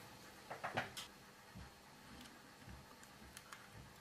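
A few light clicks and knocks, grouped about half a second to a second in, then faint scattered ticks, from hands handling a laptop's copper heat-pipe heatsink and fan assembly as it is taken off the motherboard.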